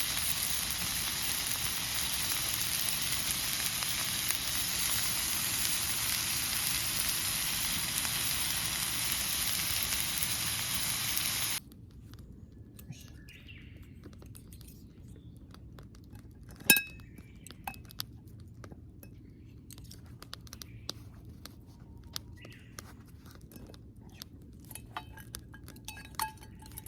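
Food frying in a pan, sizzling loudly and evenly, then cutting off abruptly about eleven and a half seconds in. After that come faint scattered clicks and one sharp clink.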